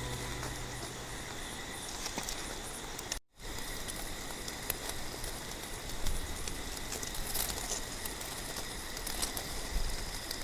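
Campfire embers crackling, with scattered small pops and ticks over a steady hiss and a faint steady high whine; the sound cuts out for a moment a little past three seconds.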